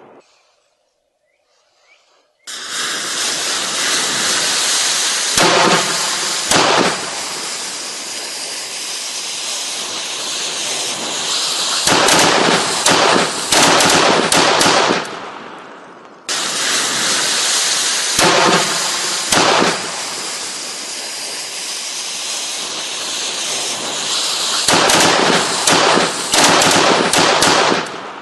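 Fireworks mounted on a small model truck going off: a loud, steady spraying hiss broken by bursts of rapid crackling pops. It starts suddenly a couple of seconds in, dies away about halfway, then starts again abruptly and runs until it fades near the end.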